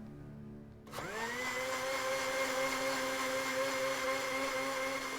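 A robot's motor whirring up about a second in, rising quickly in pitch, then holding a steady electric whine over hiss.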